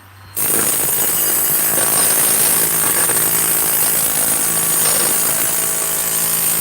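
A power tool running steadily and loudly with a harsh, hissing noise; it cuts out for a moment right at the start and then starts again.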